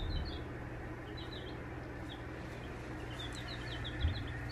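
Young pullet chicks peeping in a brooder: runs of short, high cheeps over a low steady hum, with a soft low bump about four seconds in.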